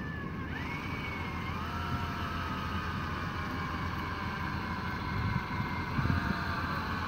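Cordless drill motor running on a fishing reel, winding in the line: a whine that climbs in pitch about half a second in, then sags slowly as the motor takes the load, over a steady low rumble.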